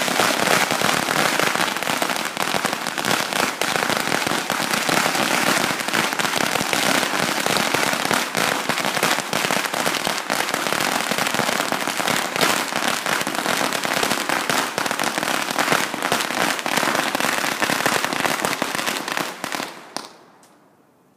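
A huge roll of firecrackers going off in a dense, unbroken rapid crackle of bangs, which thins to a few last pops and stops about a second before the end.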